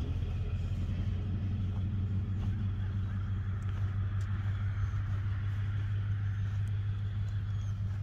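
A vehicle engine idling steadily, a low even hum with a few faint ticks over it.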